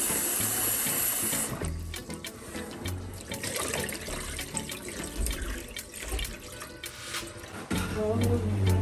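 Kitchen tap running into a plastic bowl of rice being rinsed by hand in a stainless steel sink; the tap stops about a second and a half in. Then the cloudy rinse water is sloshed and poured off into the sink.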